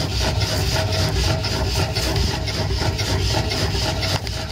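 Homemade wood-fired Stirling engine generator running steadily with an even, rhythmic beat, free of metallic knocking. A wooden log scrapes across the firebox grate as it is slid in.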